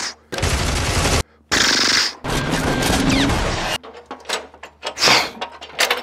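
Gunfire sound effect. For the first few seconds there are long bursts of rapid machine-gun fire, then scattered single shots, one louder about five seconds in.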